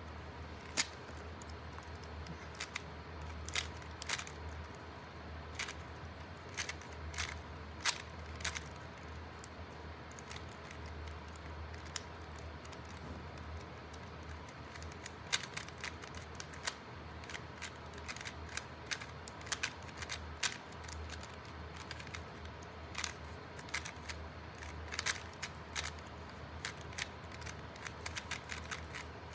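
A 3x3 Rubik's Cube's plastic layers being turned one-handed during a solve: irregular clicks and clacks, coming in quick flurries with short pauses, over a low steady hum.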